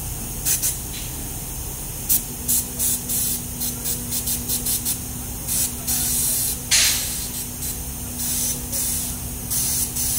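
Paint spray gun hissing in short bursts as its trigger is pulled on and off, with one longer spray about six seconds in, while a ship's hull is coated. A steady low machine hum runs underneath.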